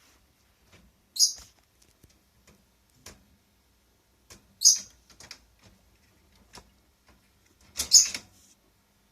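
Netherland Dwarf rabbit sneezing: three short, sharp, hissy sneezes a few seconds apart, the last one doubled, with faint scuffling between them. The sneezing is a sign of snuffles, the rabbit's recurring nasal infection.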